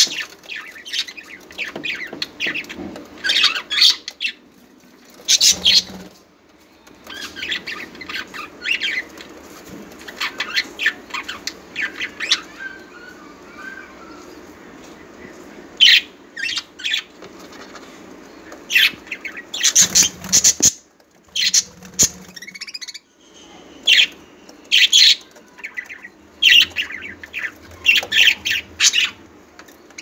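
Several budgerigars chattering, with short squawks and chirps in quick, irregular bursts.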